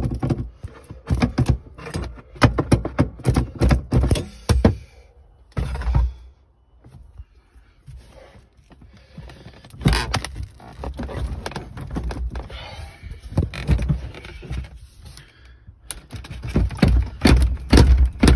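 Repeated knocks, clunks and scraping from a Land Rover Discovery 2 folding boot seat being worked loose from its spring-loaded mount. There is a dense run of clatter at the start, a single loud knock about ten seconds in, and another cluster of heavy clunks near the end.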